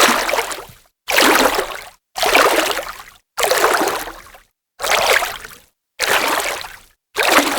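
A hand splashing in water: about seven separate splashes, roughly one a second. Each fades out within about a second, and there is a silent gap before the next.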